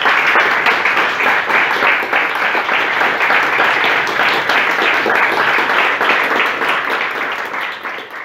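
A small seated audience applauding steadily, many pairs of hands clapping together.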